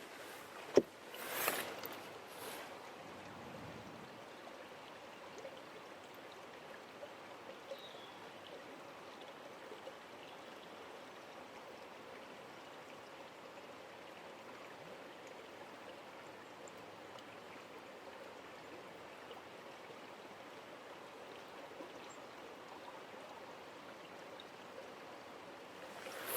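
Stream water running with a steady, even rush. There is a sharp knock about a second in and a couple of fainter knocks just after.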